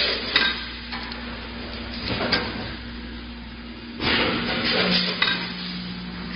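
Coffee bean packaging machine running, a steady motor hum under a noisy rattle and clatter from its mechanism. Louder clattering swells come about every two seconds, with a longer one near the end. The hum drops to a lower tone about five seconds in.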